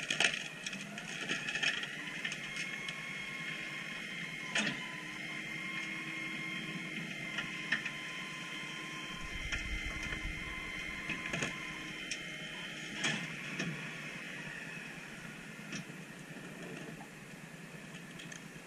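McNeilus rear-load garbage truck's hydraulic packer cycling: a steady mechanical whine with a few sharp clanks along the way, tapering off near the end.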